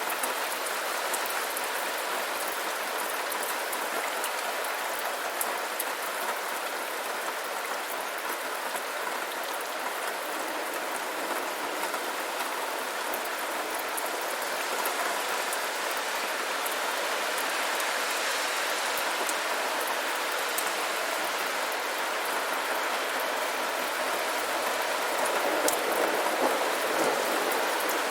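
Steady rainfall: an even hiss of rain on surfaces with scattered individual drop patter, getting slightly louder near the end.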